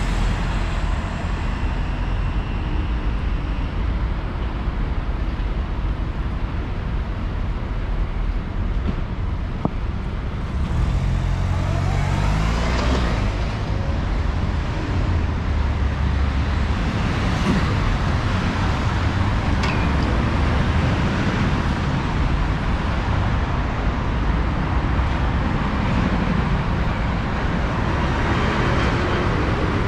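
Road traffic on a city street: steady engine and tyre noise. About eleven seconds in, one vehicle accelerates past with its engine note rising.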